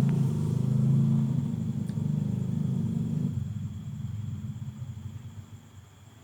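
A low, steady engine-like rumble that fades away over the last few seconds.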